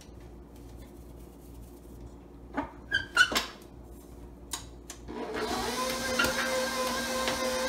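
A few short ringing metal clinks at the steel mixing bowl, then about five seconds in a KitchenAid bowl-lift stand mixer's motor starts and runs steadily with a humming whine, kneading bread dough with its dough hook after a little extra flour has gone in.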